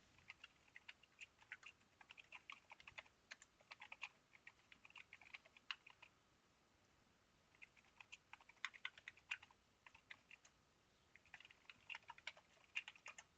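Faint computer keyboard typing: quick runs of key clicks in three spells with short pauses between.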